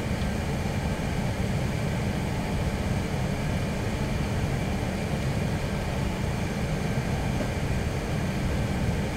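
Steady low rumble inside the cabin of an Airbus A380 moving slowly on the ground, its Rolls-Royce engines running at low power; the noise holds level with no spool-up.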